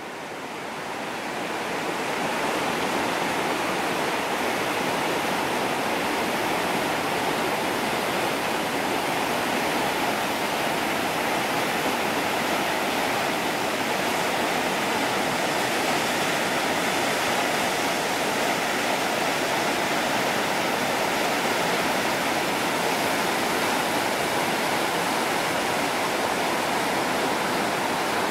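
River rapids rushing steadily over rocks and boulders, fading in over the first two seconds.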